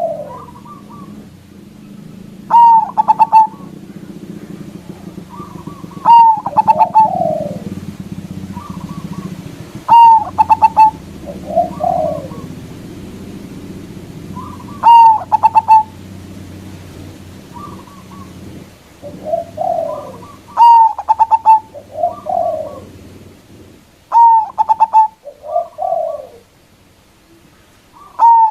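Zebra dove (perkutut) cooing in its stuttering song, one phrase about every four seconds. Each phrase is a bright, rapidly broken high note followed by lower falling coos.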